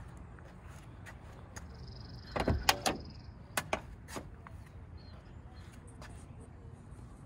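Passenger door of a 1968 Porsche 912 being unlatched and opened: a quick cluster of sharp latch clicks a little over two seconds in, the loudest sound, then a few lighter single clicks about a second later.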